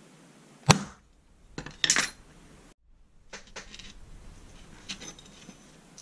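Ball-pein hammer striking a punch on a steel plate: one sharp, ringing metal blow about a second in, then a few more quick metallic knocks. Later come lighter clinks of the steel plate being handled.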